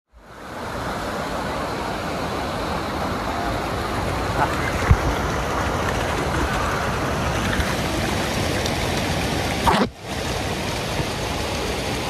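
Steady rushing of a cascading waterfall pouring down a rock face, fading in at the start, with a brief dip about ten seconds in.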